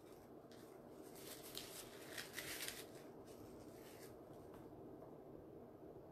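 Faint rustling and snipping as artificial foliage picks are handled and cut. A cluster of short crackles runs from about half a second to about four seconds in.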